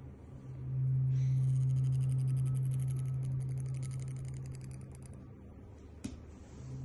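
Weighted aluminium tuning forks ringing beside the ear: a low steady hum swells in about a second in and slowly fades over several seconds, with a faint fast high ticking above it. A short tap comes about six seconds in, and the hum starts again near the end.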